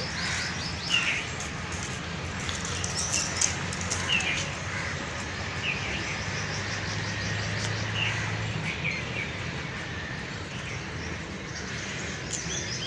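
Many small birds chirping and twittering together, with short calls and quick trilled runs overlapping, over a low steady hum.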